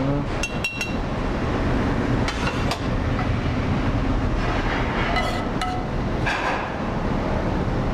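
A metal spoon clinking against steel pans several times, with short ringing strikes, over a steady low rumble of commercial kitchen machinery.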